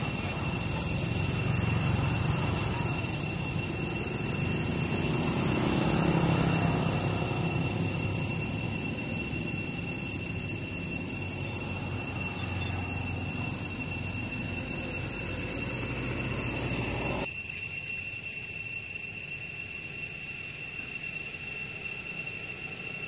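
Road traffic going by: motorbikes and a small truck passing, a low rumble that swells twice in the first several seconds and drops away suddenly about two-thirds through, over a steady high whine.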